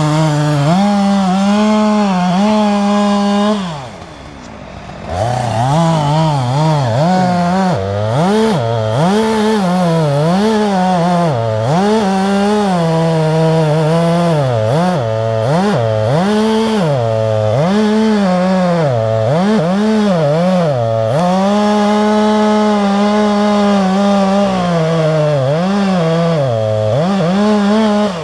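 Chainsaw cutting into the trunk of an apple tree for the felling notch, its engine pitch sagging under load and rising again over and over. It eases off briefly about four seconds in and runs steady at high revs near the end.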